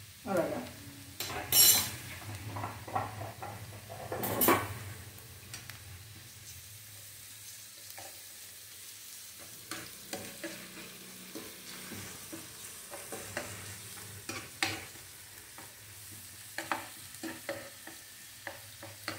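A metal spoon stirring and scraping chopped onion and green chilli sautéing in oil in a nonstick pan, with a soft sizzle underneath. The loudest scrapes come in the first few seconds, followed by lighter, scattered scrapes.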